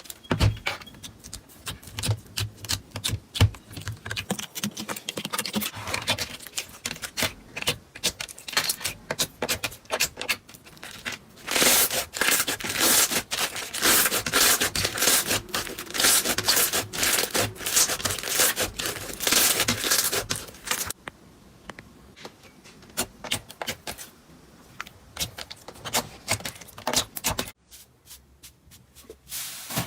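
Slime being squeezed, poked and stretched by hand, making a dense run of sticky clicks, crackles and pops. The clicking is busiest through the middle and thins out to scattered clicks near the end.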